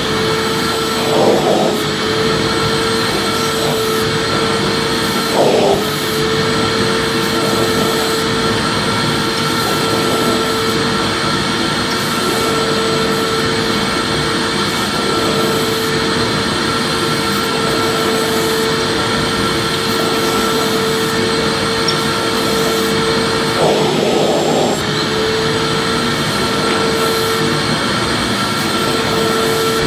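Vacuum cleaner motor running steadily: a loud, even rush of air with a constant whine, wavering briefly a few times.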